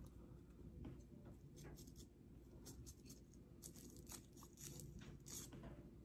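Faint, irregular scratchy ticks and crackles of a thin wooden packing stick tamping ground hemp flower into a paper pre-rolled cone.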